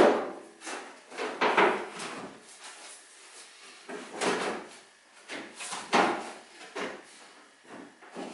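Sheet-metal wheel arch repair panel being handled and offered up against a van's body: about six separate knocks and clatters of metal on metal, the first the loudest.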